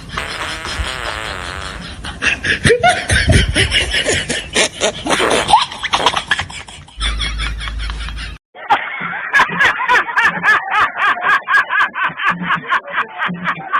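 Bursts of laughter, then after a brief cut about two-thirds of the way through, music with a steady beat begins.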